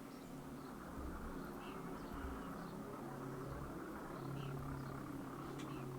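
A faint, steady low drone with a hum that grows a little stronger in the second half.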